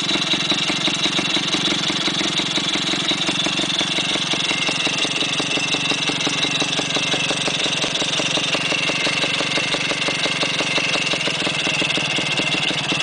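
Griffon 125 motorcycle's air-cooled single-cylinder engine idling steadily.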